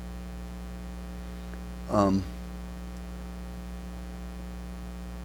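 Steady low electrical mains hum, with one short spoken sound from a man about two seconds in.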